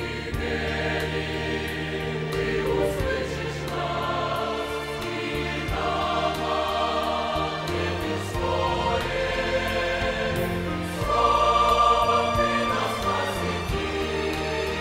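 Mixed church choir of men's and women's voices singing a hymn, growing louder about eleven seconds in.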